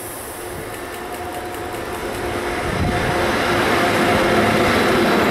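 Class 386 Traxx electric locomotive hauling a container train, approaching and passing close by. It grows steadily louder with a steady hum from its equipment, and is loudest from about three seconds in as the locomotive and the first container wagons roll past on the rails.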